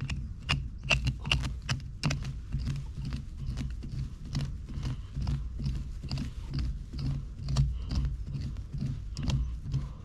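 Metal tines of a hand cultivator scraping and chopping into lawn soil and grass roots in quick repeated strokes, with crisp clicks and scrapes several times a second over dull thuds.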